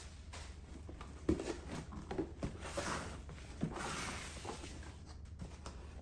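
Cardboard packaging being handled: scraping and rustling of the box and its cardboard inserts, with a few knocks, the sharpest about a second in.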